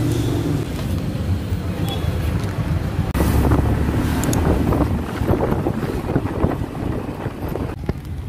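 Wind buffeting the microphone: a steady low rumble with uneven gusty noise.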